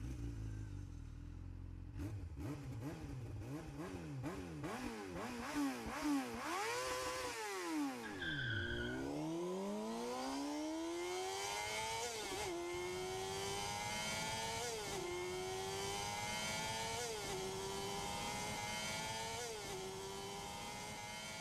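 Engine revving hard in a series of quick blips, then dropping away. It then accelerates up through the gears, the pitch climbing and falling back at each of four shifts about two seconds apart.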